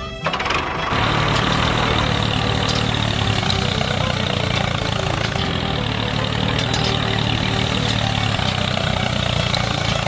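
An engine running steadily, with a strong low hum, cutting in abruptly under a second in as music stops.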